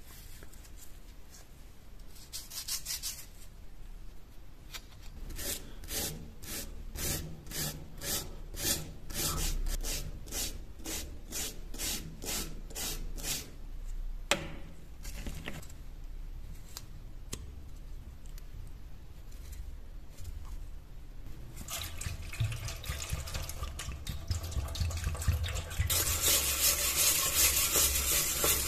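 Rust being scraped and rubbed off an old iron folding-knife blade: rhythmic strokes, about two a second for several seconds, then one sharp click. Near the end comes a steadier, louder scraping as a plastic scraper works the rust off the blade in a metal tray.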